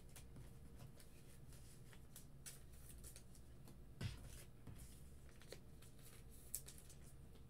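Faint handling of trading cards on a tabletop: soft sliding and shuffling with light clicks, and one short knock about four seconds in.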